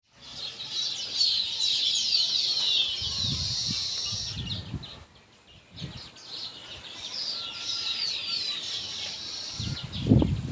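A dense chorus of small birds chirping, many quick high falling notes overlapping. It stops briefly about halfway and then resumes. Short low rumbles come near the middle and near the end.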